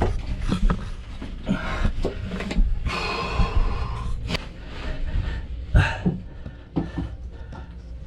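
A man panting and breathing hard close to the microphone as he squeezes through a cramped crawlspace, with scuffing of his body against the hull and a couple of sharp knocks.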